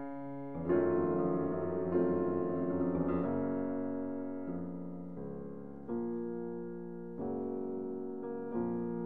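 Background piano music: slow sustained chords, a new chord struck about every second and a half, each fading before the next.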